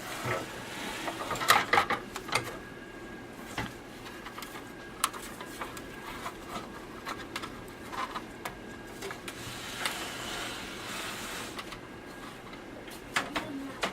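Plastic and sheet-metal clicking, knocking and scraping as a USB front-port module is worked into a PC case's floppy-drive bay. The knocks are irregular, the loudest a second and a half in, with short scraping stretches early on and again around ten seconds in. A faint steady high whine runs underneath.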